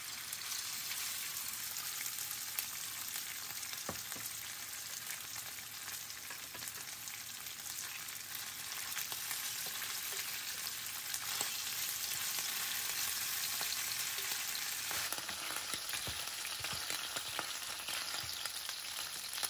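Shrimp pieces sizzling in hot oil in a nonstick frying pan as they are stir-fried, a steady frying hiss with a few brief taps of the utensils.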